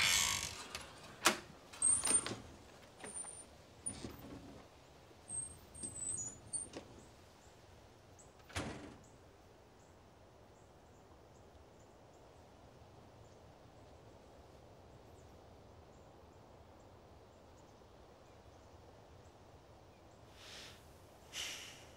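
Screen door opening and banging shut, followed by a few more knocks and clicks over the next several seconds, with faint high chirps among them. Then a long stretch of quiet outdoor background, broken by two short rustling sounds near the end.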